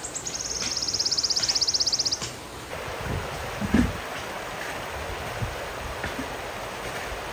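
Shallow rocky river flowing over stones, a steady rush of water. For the first two seconds a high, fast pulsing trill of about fifteen pulses a second grows louder over it, then stops abruptly. A couple of low knocks come a little before the middle.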